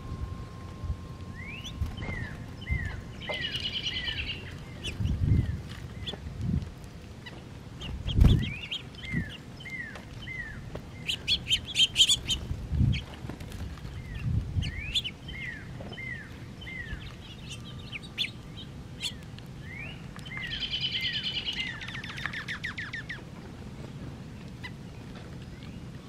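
Small songbirds calling repeatedly: runs of short down-slurred chirps and buzzy trills. A few low thumps come in between, the loudest about eight seconds in.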